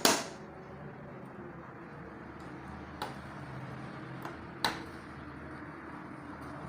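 Clothes iron being handled while pressing a blouse's zipper seam: a sharp knock right at the start as the iron comes down, then a few light clicks about three and four and a half seconds in, over a steady low hum.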